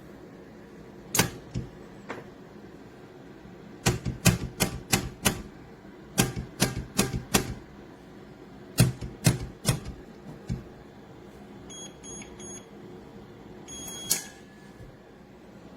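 Runs of sharp plastic clicks from buttons being pressed on a gun safe's keypad, a few single presses and then quick runs of four to six. Short, high electronic beeps follow near the end.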